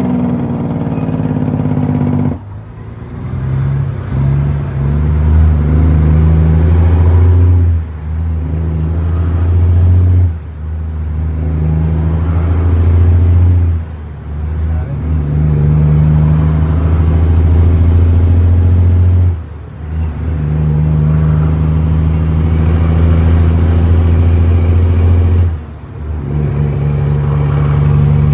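Western Star truck's diesel engine pulling under load through the gears. It drops off sharply about six times as the driver shifts up, each gap longer than the last, and builds again after each shift with a high whistle rising.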